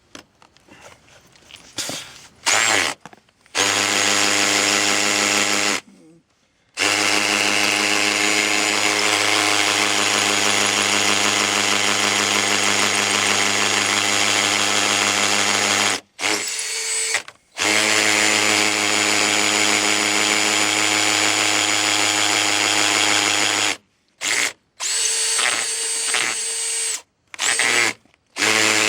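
Battery-powered drill boring into fiber-reinforced concrete, running steadily in several long runs and stopping abruptly between them, about five times. The bit is grinding through a rock in the concrete.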